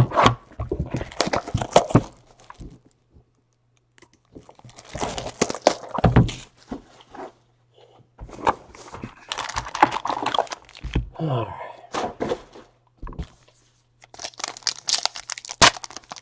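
Plastic shrink-wrap being slit and torn off a cardboard trading-card box, then a foil card pack ripped open: repeated bursts of crinkling and tearing with a few sharp knocks, coming in four spells with short pauses between.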